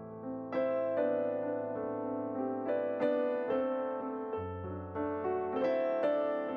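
Background piano music: a slow, gentle melody of struck notes that ring on and fade, with a new note or chord every half second or so.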